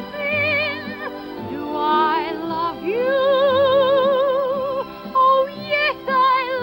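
A soprano voice sings a show tune with a wide, even vibrato. About three seconds in she holds one long note for nearly two seconds, with shorter phrases before and after it.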